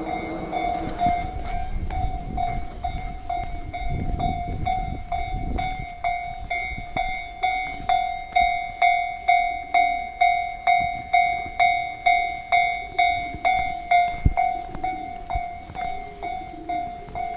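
Japanese railway level-crossing alarm ringing: an electronic bell tone struck about twice a second, warning that a train is approaching. A low rumble fills the first few seconds.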